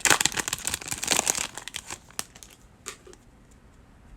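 Baseball trading cards handled and slid against one another in the hand: a dense rustle of card stock that dies down about halfway, followed by a single click.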